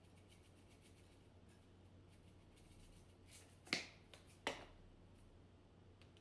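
Two short, sharp taps about a second apart, the first the louder, with a few faint ticks around them in otherwise near silence.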